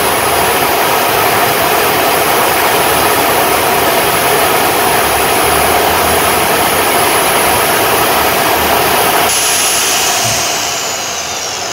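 Electric chainsaw motor running steadily at speed with a high whine, then switched off near the end and winding down as the whine falls in pitch. It is being run to check that the repaired oil pump is pumping oil to the chain.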